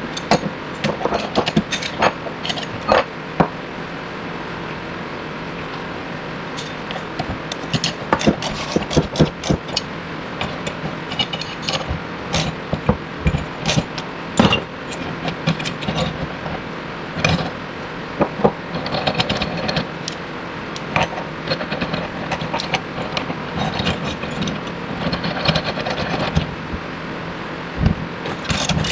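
Irregular sharp metallic clicks and knocks from tools worked on metal, over a steady hum, while a bearing splitter is fitted and worked to pull an old wheel-bearing inner race off its hub.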